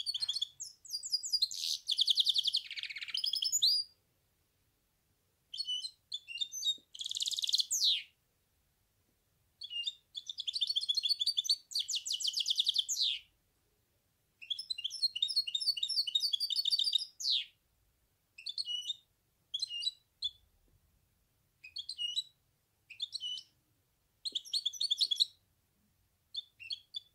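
Goldfinch hybrid (mule) singing: quick phrases of rapid twittering notes and trills, each a second to four seconds long, with short pauses between them. The phrases become shorter and choppier in the second half.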